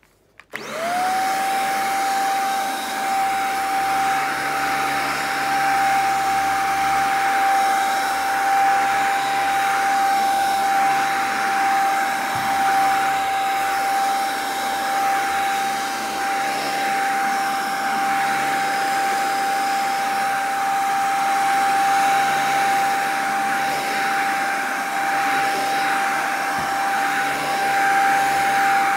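Handheld mattress vacuum cleaner switched on about half a second in, its motor quickly rising to a steady high whine over the rush of air, as it is pushed over the sheet of a bed.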